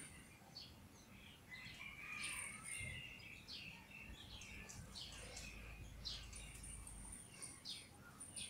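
Small birds chirping faintly: many short, falling chirps, with a longer warbling call about two seconds in and a thin high whistle that comes and goes.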